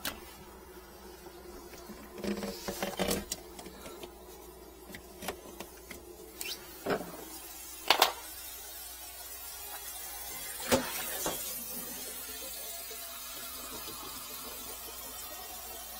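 Handling knocks and clatters under a kitchen sink, then a small electric blower starts up about two-thirds of the way in and runs steadily, blowing air into the clogged sink drain pipe to push the blockage through.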